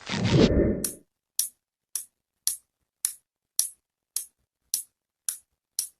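A loud low rumbling burst lasting about a second, then steady, sharp ticking, just under two ticks a second, like a clock-tick sound effect.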